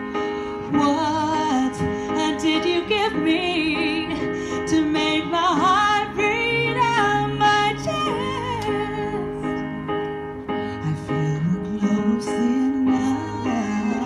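A woman sings a slow pop ballad into a handheld microphone, with runs and vibrato, over a soft sustained keyboard accompaniment.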